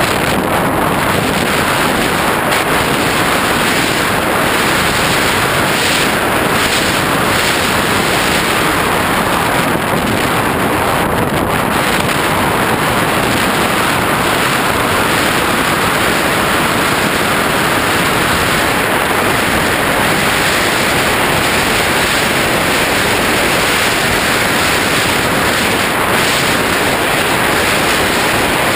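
Steady, loud rush of wind over the onboard GoPro's microphone as an FPV flying wing flies through the air. There is no clear motor tone.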